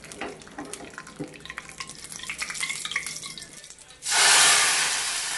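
Tempering of mustard seeds, urad dal and curry leaves crackling and spitting in hot oil in a small pan. About four seconds in it is poured into the sambar, and a loud hiss starts at once and slowly fades.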